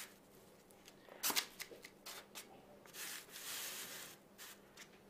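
Faint handling noise from hands moving the cardboard pieces of a homemade slide projector: a few light clicks and taps with a short rubbing scrape in the middle.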